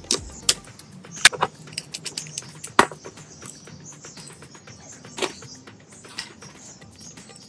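A handful of sharp, irregular clicks and knocks from metal jig parts and hardware being handled and fitted, over faint background music.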